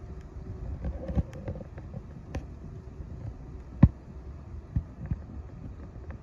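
Low wind rumble on the microphone with a few sharp knocks, the loudest about four seconds in.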